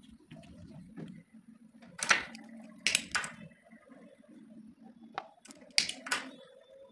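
Calcium carbide reacting with water inside a capped plastic bottle, giving off gas with a steady low bubbling, broken by several sharp clicks and taps, the loudest about two and three seconds in and again near the end.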